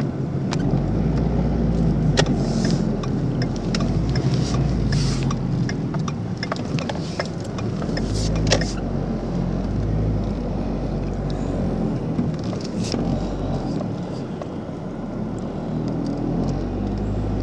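A car driving on a snow-covered road, heard from inside: a steady low engine and tyre rumble with scattered light ticks and knocks.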